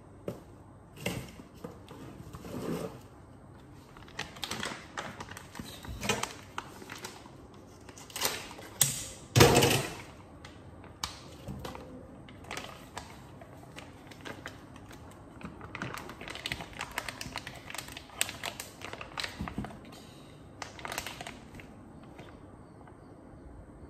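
Kitchen handling noises: scattered clicks, knocks and rustling as a plastic bag of marinated chicken wings is handled, with one loud knock about nine and a half seconds in.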